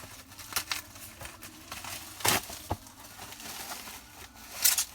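A courier parcel is being opened by hand: packaging crinkles and rustles, with a few short, sharp rips. The loudest come a little over two seconds in and near the end.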